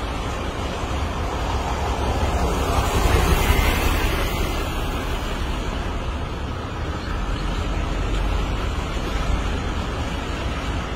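Steady road and wind noise from a moving car driving past a convoy of heavy trucks. The noise swells about three seconds in.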